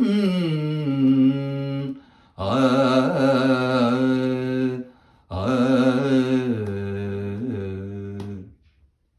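A man singing alone in three long, drawn-out held phrases with a slight waver in pitch and short breaths between them: the closing cadence of a Tamil devotional song to Ganesha. The voice stops about a second before the end.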